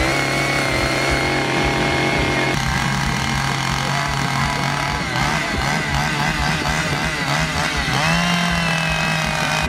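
Two-stroke chainsaw engine, converted into a back massager with a flat plate in place of the bar and chain, running steadily under the throttle; its speed picks up a little about eight seconds in.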